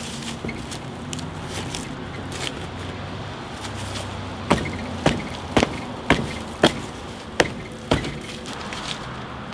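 A wooden plank being kicked or knocked into place by the truck's tyre: about eight sharp wooden knocks roughly half a second apart, starting about four and a half seconds in, after some quieter handling and rustling.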